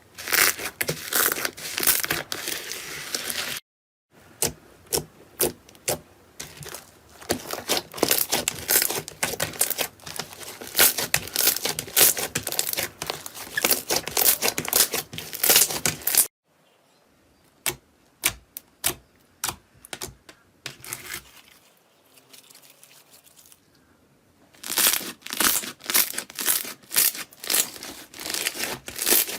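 Slime being squished and stretched by hand, making dense crackling and popping clicks. The sound breaks off abruptly twice, and for several seconds after the second break there are only scattered pops before the dense crackling returns.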